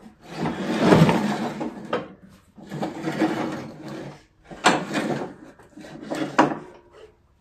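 A steel riding-mower deck being shoved under the mower, scraping and rolling across a concrete floor in about four noisy pushes, the longest at the start.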